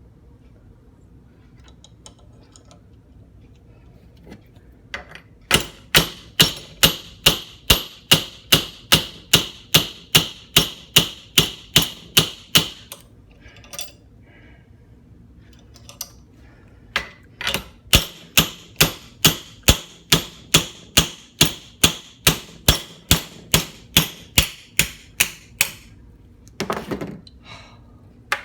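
Hammer blows working a screwdriver's steel shank out of its handle: two runs of steady strikes, about three a second, each with a metallic ring, with a pause of a few seconds between them.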